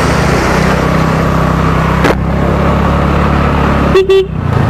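A TVS Ntorq scooter being ridden: its engine drones steadily under loud road and wind noise, with a single knock about two seconds in. Near the end a horn gives one short toot.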